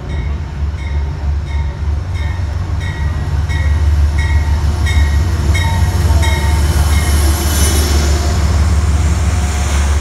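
Amtrak Genesis diesel locomotive arriving at a platform. Its bell rings evenly, about one and a half strokes a second, and stops about seven seconds in, over a heavy low engine rumble that grows louder as the locomotive comes alongside. Near the end the passenger cars roll past with a rising hiss.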